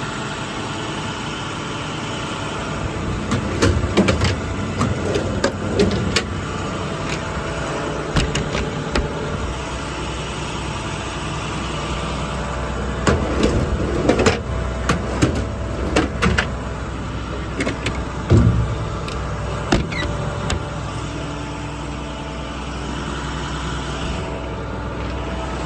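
International Durastar's MaxxForce diesel idling steadily, with clusters of clunks and clicks over it, several early on and more about halfway through.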